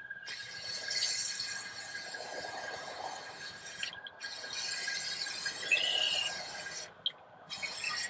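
Aerosol spray-paint can hissing as black paint is sprayed onto a metal chair, in three long sprays with short breaks between them, about four and seven seconds in.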